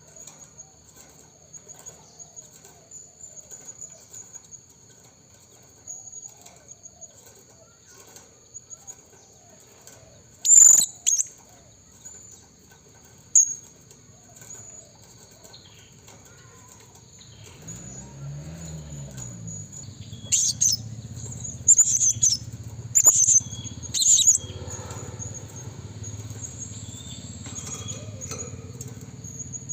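Blue-crowned hanging parrot (serindit) giving short, shrill, high-pitched calls: two about ten seconds in, one more soon after, then a cluster of four in the second half, over a steady high-pitched whine. A low rumble sets in a little past the middle.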